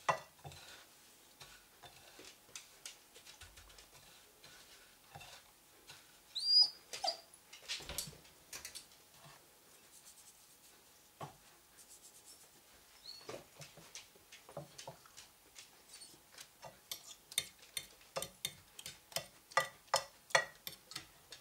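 Metal fork clinking and scraping on porcelain plates as zucchini slices are dipped in beaten egg and pressed into breadcrumbs, with a quick run of taps near the end. Two short high squeaks, rising then falling, the louder about six seconds in.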